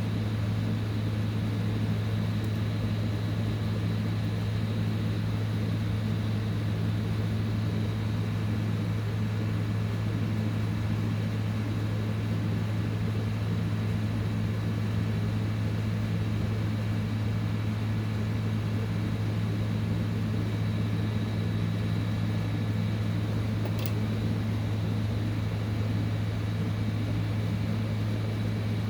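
Hot-air rework heat gun running steadily, its blower a constant hum with a thin steady high tone over it, while it heats MOSFET chips on a hashboard for removal.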